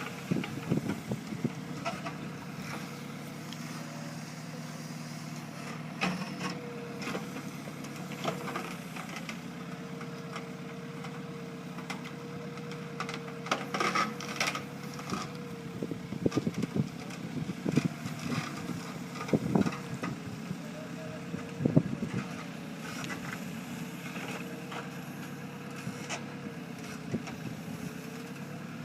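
Engine of a heavy construction machine running steadily, with a wavering whine and scattered metallic knocks and clanks, busiest in the middle.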